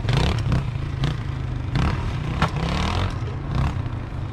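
Dirt bike engine revving up and down repeatedly as the rider works the throttle through an endurocross obstacle section.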